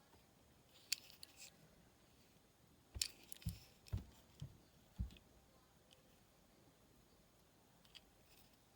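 Handling of diecast toy cars and their plastic packaging: a click about a second in, then a cluster of sharp clicks and soft low knocks from about three to five seconds in, with near silence between.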